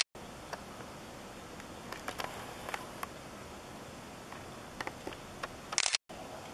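Steady low background hiss with a few faint scattered clicks of a handheld camera being handled. Near the end a short loud crackling burst, then the sound drops out for a moment at a recording cut.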